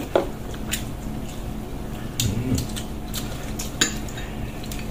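Chopsticks and a fork clicking against a metal platter and bowls during a meal: scattered sharp clicks a few times a second apart.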